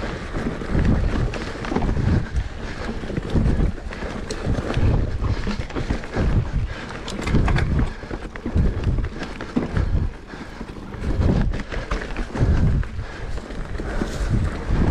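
Wind buffeting the microphone in uneven gusts, a low rumble that swells and fades about once a second.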